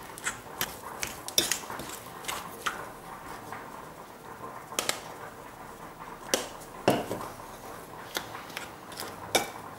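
A metal fork stirring crumbly curd shortcrust dough in a glass bowl, its tines clinking irregularly against the glass, with a short lull about midway.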